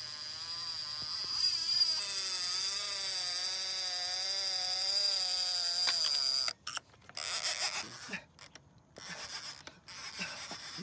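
Casting reel's drag buzzing steadily as a hooked fish pulls line off the spool, the pitch wavering up and down. About six seconds in it stops abruptly, then comes back in short spurts.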